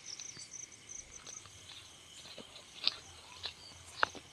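Night insects, crickets, chirping in a steady high rapid pulse, with a few sharp snaps and crackles close by, the loudest about three and four seconds in.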